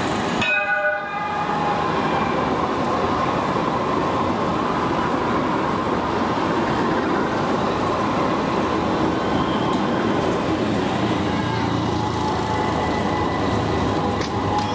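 Modern electric trams passing close by on street track, with the steady running noise of wheels on rail and drive equipment, and a faint whine. A brief high-pitched tone, like a tram's warning signal, sounds about half a second in.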